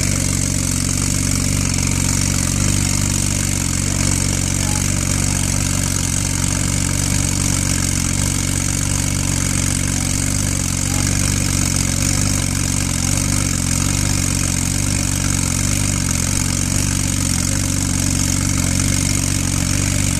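Twin-turbo Porsche 911 flat-six idling evenly with its engine lid open, a constant hiss sitting above the low engine note.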